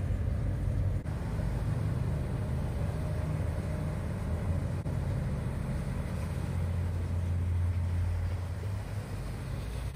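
Workboat engine running with a steady low rumble as the landing craft pulls away from the slipway.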